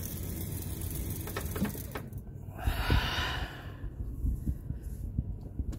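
Electric Lewmar winch motor running steadily as the hinged platform opens, then stopping about two seconds in. A short breathy whoosh follows about a second later, then a few light clicks.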